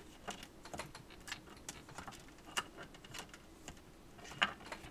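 Baseball trading cards being handled: a run of irregular light clicks and taps as cards are flipped through and laid down, with one sharper tap near the end.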